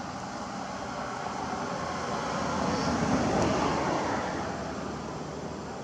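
A vehicle passing by, its noise swelling to a peak about three seconds in and then fading away.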